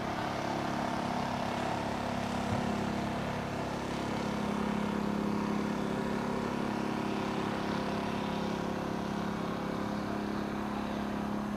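An engine running steadily: a low, even drone at a fixed pitch that swells slightly around the middle.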